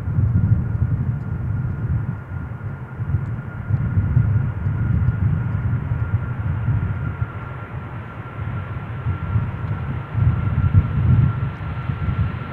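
Jet airliner engines: a low rumble with one steady high whine over it, the whine sagging slightly in pitch near the end.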